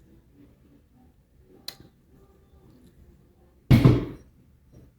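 Quiet room tone broken by a sharp click a little under two seconds in and a loud thump with a short clatter near the end.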